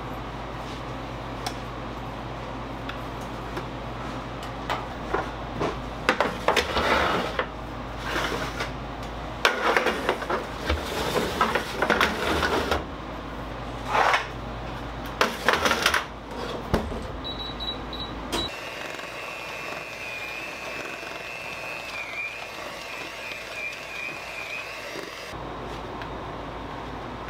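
Bakery kitchen work sounds: clattering and knocking of trays and tins over a steady machine hum. About 17 seconds in, four short electronic beeps sound and the hum stops, then a steady high beep tone holds for several seconds, an appliance signalling the end of its cycle.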